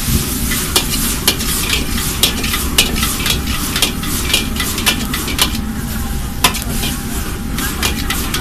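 Food sizzling as it is stir-fried in a hot pan, with sharp clacks of a spatula striking and scraping the pan at irregular intervals, about one or two a second.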